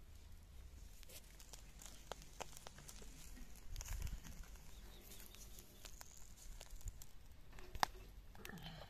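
Faint rustling and tearing of green leaves being handled, with scattered light clicks and a sharp tap near the end from a stick against a wire mesh grill.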